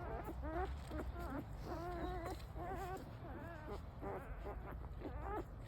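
Newborn puppies whimpering and squealing: many short, wavering high cries in quick succession over a low rumble.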